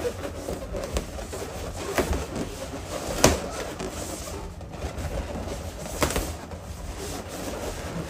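Latex balloons rubbing and squeaking against each other as hands press them into place on a balloon column, with a few sharp taps. The loudest tap comes about three seconds in.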